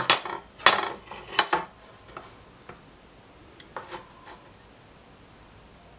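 Aluminium speed square knocking and scraping against a mitre saw's metal fence and table as it is set up to check the fence for square: a few sharp knocks with rubbing in the first second and a half, then fainter clicks about four seconds in.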